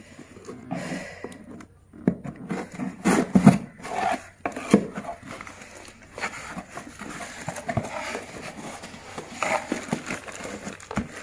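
Cardboard shipping box being opened and handled by hand: irregular rubbing, scraping and knocks of the cardboard flaps, with the plastic-bagged contents rustling as they are lifted out near the end.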